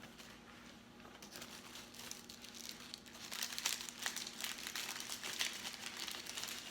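Food wrapping crinkling as it is handled and opened. The rustle starts about a second in and grows louder and busier partway through.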